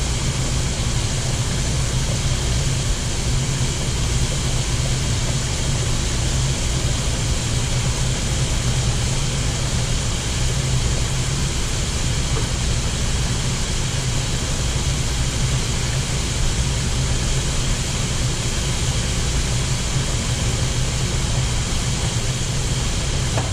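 Shrimp deep-frying in an electric deep fryer: the hot oil sizzles steadily, over a constant low hum.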